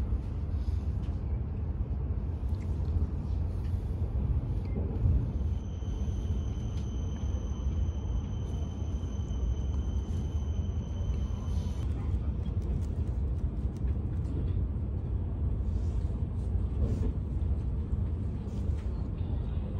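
Steady low rumble of a Hayabusa Shinkansen running at speed, heard from inside the passenger cabin. A faint, steady high whine sits over it for several seconds in the middle.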